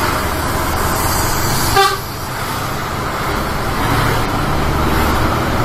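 Mercedes-Benz Axor 1840 truck's diesel engine running on the move, with one short horn toot just under two seconds in. The engine eases off after the toot and picks up again about four seconds in.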